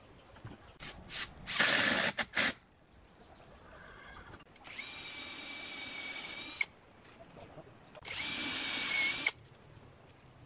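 Cordless drill driving screws into a wooden roof frame, in two steady whining runs: one of about two seconds, then a shorter one of about a second. A brief loud clatter comes about two seconds in.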